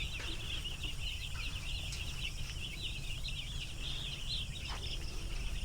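A flock of four-day-old broiler chicks peeping together, a dense, continuous chorus of many short, high cheeps overlapping one another.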